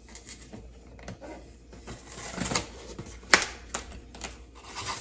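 Utility knife slicing through packing tape on a cardboard box: a run of irregular scratchy clicks and scrapes, the sharpest about two-thirds of the way through.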